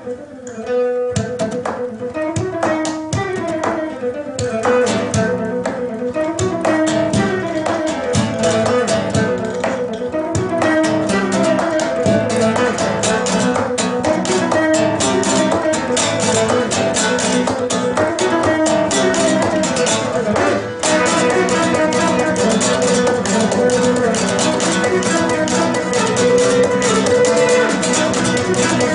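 Two acoustic guitars playing together, a fast run of picked notes over a steady rhythm, with a brief drop in level about 21 seconds in.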